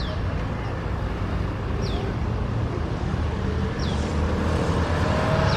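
Steady low outdoor rumble with a short, high, falling chirp that repeats about every two seconds. Faint voices come in near the end.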